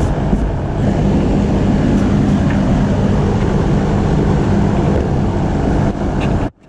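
Steady low rumble of machinery running, with a constant hum under it. It cuts off abruptly near the end.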